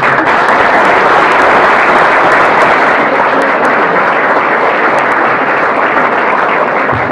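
A crowd applauding at the close of a speech: dense, steady clapping that starts suddenly and holds for about seven seconds.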